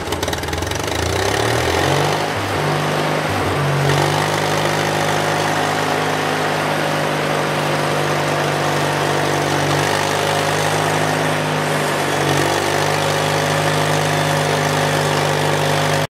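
Mighty Mite band saw mill's engine revs up over the first two or three seconds, then runs steadily at speed as the saw head cuts along the log.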